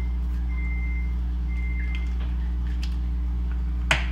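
Three electronic beeps at one steady high pitch, each about half a second long and about a second apart, over a constant low hum. Near the end comes a single sharp click.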